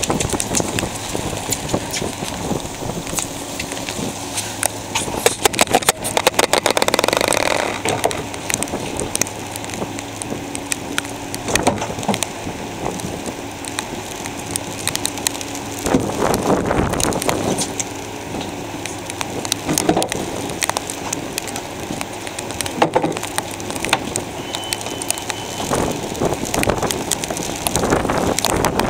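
Gusty wind buffeting the microphone, with a dense crackle running through it. The gusts swell loudest about a quarter of the way in, just past halfway, and near the end.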